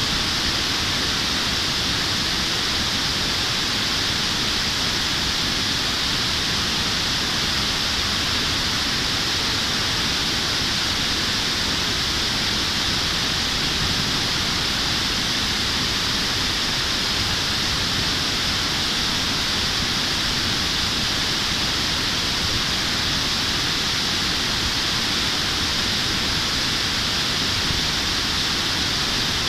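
River water pouring over a low concrete weir: a steady, loud rush of white water.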